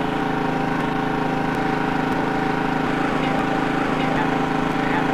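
A steady drone made of several constant tones, holding level without any change in pitch or rhythm.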